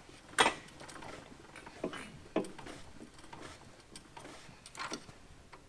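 A few scattered sharp clicks and knocks of parts being handled, the loudest about half a second in.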